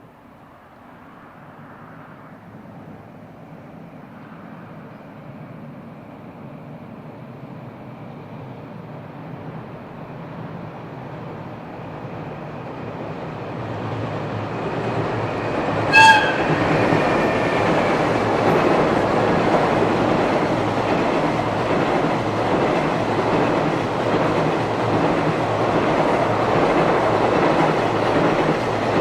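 A JR Freight locomotive-hauled freight train approaches, growing steadily louder, and sounds one short, sharp horn blast about sixteen seconds in. It then runs past loudly on the rails.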